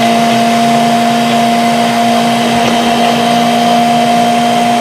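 Ninja countertop blender running at a steady high speed, blending a thick chocolate protein shake in its single-serve cup, with an even motor hum.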